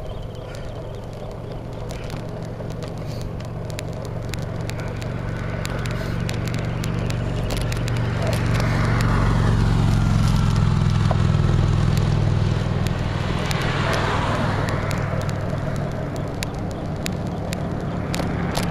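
Wind rumbling over the microphone of a moving bicycle, with light clicks throughout. Around the middle a car passes on the road alongside: its tyre noise swells and falls in pitch, and a second swell follows a few seconds later.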